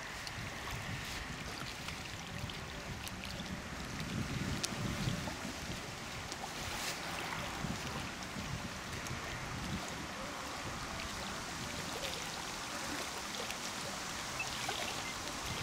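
Small waves lapping at a gravel lakeshore, with scattered faint clicks and crunches of footsteps and handling on the stones, and a short low rush of noise about four seconds in.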